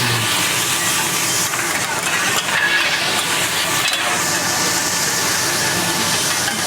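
Fried rice sizzling on a hot iron teppanyaki plate as it is stir-fried, with spatula stirring, over a steady mechanical hum.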